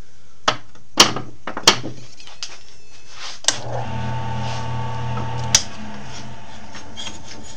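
Several sharp clicks and knocks as a workpiece is clamped in a wood lathe's chuck, then a click and the lathe motor hums steadily for about two seconds before a second click cuts it off.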